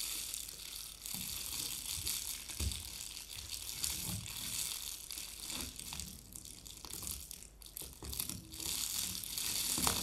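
Household objects handled to make sound effects: an irregular ratcheting, scraping clatter with soft thumps every half second or so.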